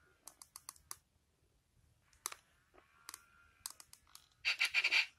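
Faint clicks and taps from handling a plush electronic puppy toy as its nose is pressed, with a short hissing burst near the end.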